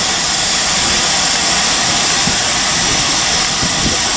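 GWR Castle class steam locomotive 5029 Nunney Castle standing with steam hissing loudly and steadily.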